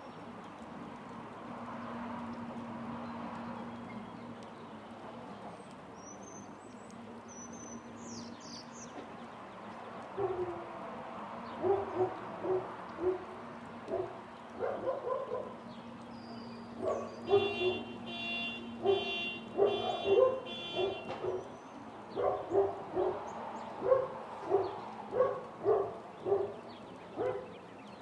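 Light rain hissing steadily over a low city hum. About a third of the way in, a dog starts barking repeatedly, one or two barks a second, and the barking is the loudest sound.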